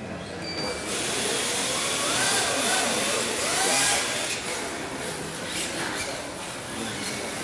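Two 1/10-scale electric RC drift cars launching and drifting side by side. A hissing rush starts about a second in, with motor whine gliding up and down in pitch as the throttle changes.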